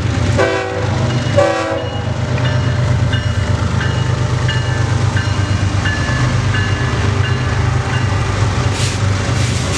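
BNSF diesel freight locomotives passing at speed: two short horn blasts in the first two seconds, then a steady ringing of the locomotive bell over the low rumble of the engines and the rolling train.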